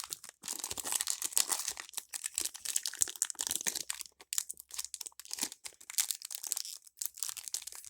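Foil Pokémon booster pack wrapper crinkling and tearing as it is opened by hand, a steady run of crackles.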